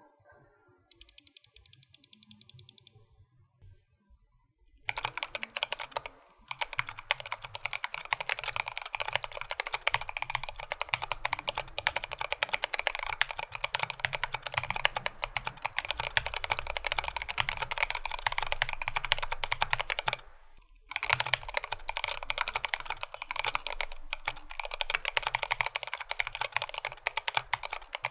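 Typing on a stock GMMK Pro mechanical keyboard with Everglide Beeswax tactile switches, an aluminum plate, stock GOAT stabilizers and Domikey keycaps. The key clicks come fast and continuous, after a short run of evenly spaced clicks near the start, and pause briefly about twenty seconds in.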